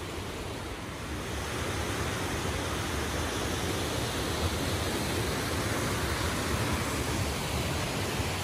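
Rocky stream rushing over boulders and small cascades: a steady, even rush of water that grows a little louder about a second and a half in.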